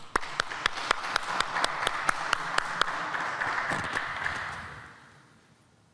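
A few people clapping and applauding, one set of claps standing out at about four a second; the applause dies away about five seconds in.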